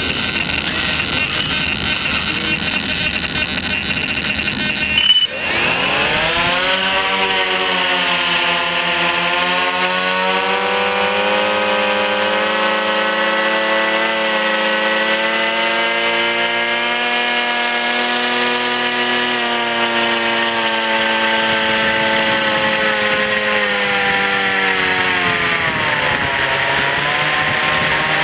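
A knock about five seconds in, then the remote-control blimp's propeller motor spins up with a rising hum and runs steadily, heard close from the camera mounted on the blimp; its pitch dips briefly near the end and comes back up.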